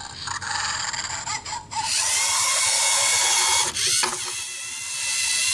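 LEGO Mindstorms EV3 servo motors whining through their plastic gears as the robot drives forward with its arm moving, stopping briefly about four seconds in, then running again as it backs up. A quieter rasping noise comes first, before the motors start.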